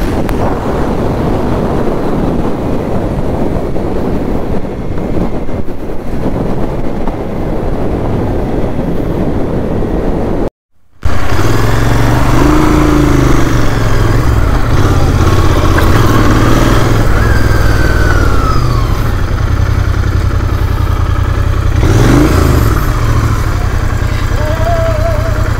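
Motorcycle on the move: engine and rushing noise for about ten seconds. After a brief cut, a steady low engine drone follows, with a few sweeping rises and falls in pitch.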